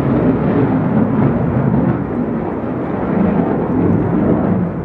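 Jet noise from an F/A-18 fighter flying overhead: a steady, deep rumble.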